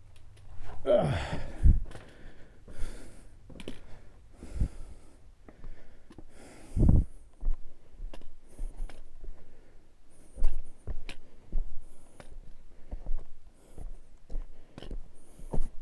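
Footsteps crunching and scraping on rocky ground, with irregular knocks throughout. There are two heavier thumps, one about two seconds in and one near seven seconds.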